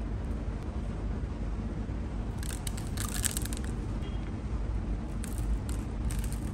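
Sugar sprinkles scattered by hand over a soft-serve-topped chimney cake, heard as short bursts of high, fine hissing patter about halfway through and twice near the end, over a steady low background rumble.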